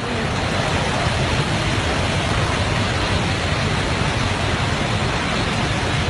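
Muddy flash-flood torrent rushing past, a loud, steady wash of noise.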